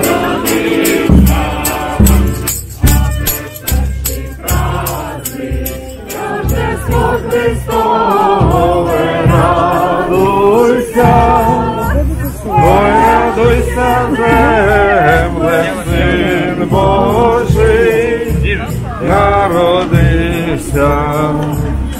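A group of carollers singing a Ukrainian Christmas carol (koliadka) together, with a large drum beating. The drumming stands out in the first few seconds, and the singing grows fuller from about eight seconds in.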